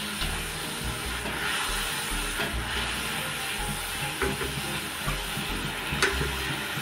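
Thickened tamarind chutney simmering in a wok with a steady sizzling hiss as a silicone spatula stirs it, with a sharp tap near the end.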